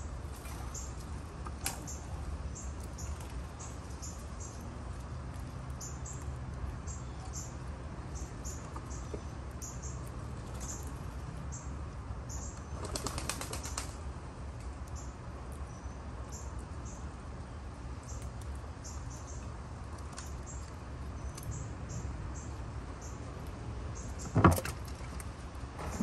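Short, high bird chirps repeat irregularly throughout. About halfway through, a dove's wings flap in a quick flurry for about a second, and a single sharp knock comes near the end.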